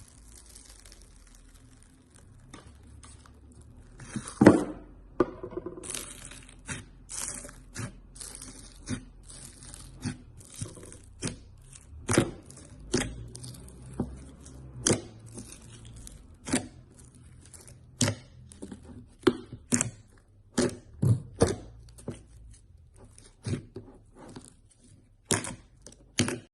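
Slime being played with, making a series of sharp pops and crackles at irregular intervals about once a second, the loudest about four seconds in.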